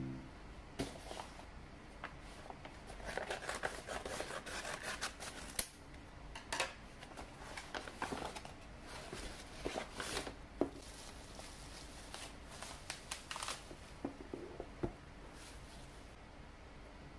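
Paper shipping bag being handled and opened by hand: rustling, crinkling and tearing of paper, with a denser crinkling spell a few seconds in. Scattered light taps and clicks come as the boxed phone is slid out and set down on a desk.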